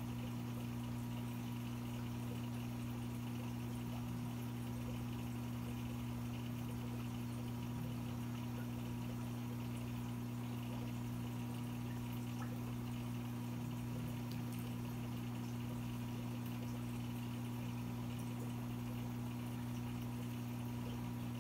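Aquarium filter and air equipment running: a steady low hum with water bubbling and trickling in the tank.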